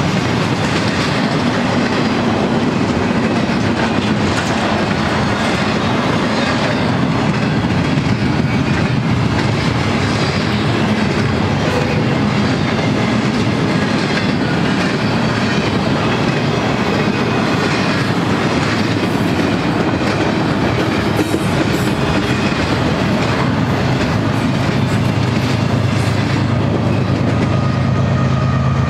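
Double-stack intermodal freight train rolling past, its well cars' wheels clattering steadily over the rails. Near the end the low drone of the train's distributed-power diesel locomotives comes in under the wheel noise.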